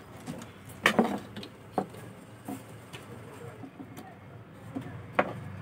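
A few scattered clicks and taps as fingers handle the wires and the volume potentiometer inside an amplifier cabinet. The loudest come about a second in and near the end.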